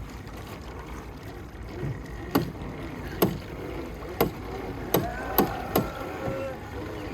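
Hydrobike out on open water: a steady low wash of water and wind, broken by six sharp knocks between about two and six seconds in.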